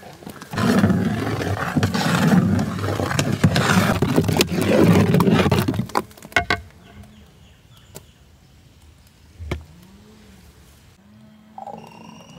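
Thick dragon fruit milkshake with lumps of ice cream being stirred and churned in a large aluminium pot, loud sloshing and scraping for about five seconds. It then goes quieter with a couple of knocks, and near the end milkshake pours into a glass tumbler, a short sound rising in pitch as the glass fills.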